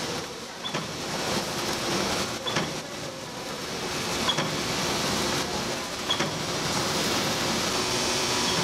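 Plastic-film packaging machine running steadily, with a short sharp click about every second and a half to two seconds as it cycles through each pack.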